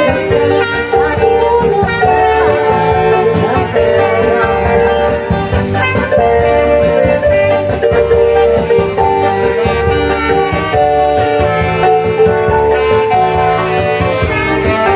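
Live dance band playing an instrumental passage of a cha-cha, with saxophone and trumpet carrying held melody notes over guitar and a steady beat.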